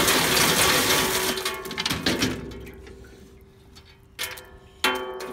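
A mass of boiled crawfish sliding and clattering down the aluminium dump chute of an R&V Works Cajun seafood boiler into a cooler, dying away after about two seconds. Near the end come two sharp metal clangs that keep ringing, each a second or so long.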